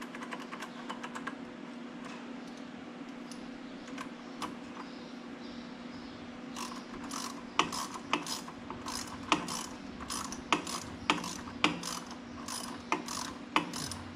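Socket ratchet clicking in short strokes as the clamp on a turbocharger line is worked loose, with the clicks coming more often in the second half. A steady low hum runs underneath.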